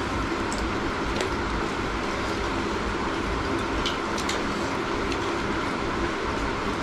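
Steady low rumbling hum with a few faint, scattered clicks and smacks from people eating with their hands.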